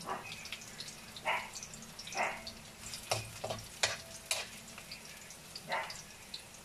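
Minced garlic sizzling in hot oil in a wok as it is browned, with a metal spoon stirring and knocking against the wok in a string of short strokes.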